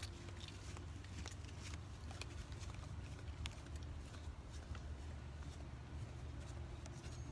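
Footsteps of a person walking: scattered light clicks and taps over a faint, steady low rumble.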